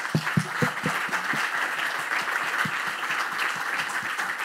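Audience applauding: many hands clapping in a dense, steady patter, with a few louder low thumps in the first second and a half.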